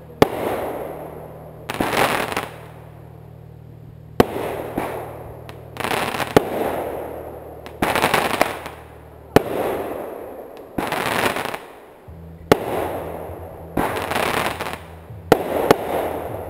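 Aerial fireworks bursting one after another: about ten sharp bangs, one every one to two seconds with a gap of a few seconds near the middle, each trailing off over a second or so.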